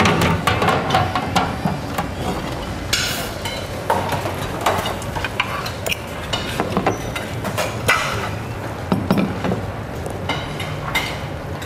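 Scattered clinks and knocks of kitchenware: a metal ladle and spoon against a pot and ceramic plates being set down and slid on a countertop.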